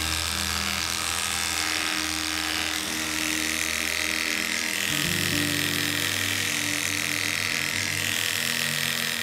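Electric dog grooming clippers running and shaving through a matted, corded coat: a steady buzz.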